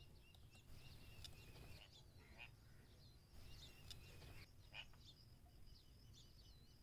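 Near silence: faint birds chirping in the background, with a couple of soft ticks.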